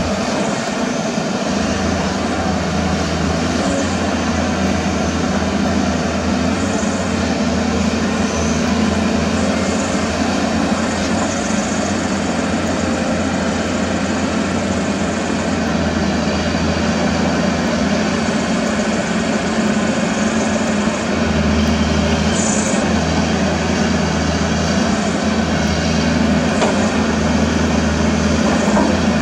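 Caterpillar 320D excavator's six-cylinder diesel engine running under load as the machine digs, a steady drone that grows heavier about two-thirds of the way through.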